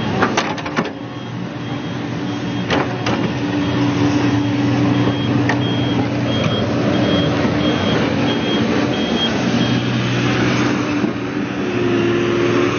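Crawler excavator's diesel engine running steadily under working load, with a high warning beeper sounding about twice a second. A few sharp metallic knocks come in the first second and again around three seconds in.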